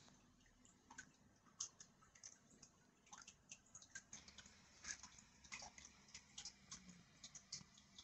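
Near silence with faint, irregular small clicks and ticks, coming more often from about three seconds in.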